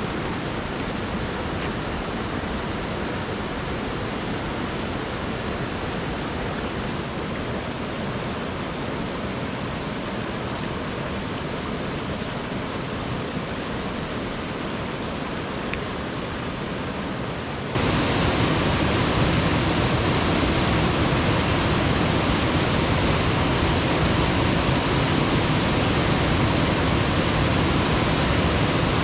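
Steady rush of falling water from a waterfall, with no pitch or rhythm. It jumps suddenly louder about two-thirds of the way through and stays at that level.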